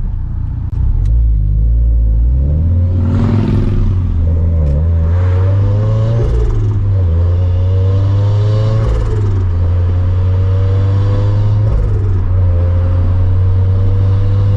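Turbocharged Scion FR-S flat-four engine (Greddy T518Z turbo kit) pulling up through the gears: the engine note rises steadily, then drops at each upshift, about four times, over a steady low drone.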